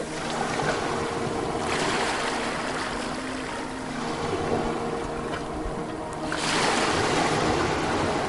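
Ocean waves washing in, the surf swelling about two seconds in and again after six seconds.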